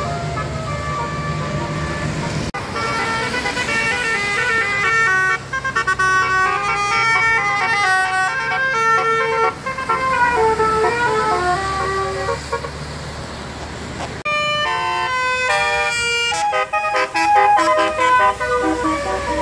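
Basuri 'telolet' multi-tone vehicle horn playing a melody of stepped horn notes, with a low steady hum under it at the start. About two-thirds of the way through, the notes turn into a quicker string of short toots.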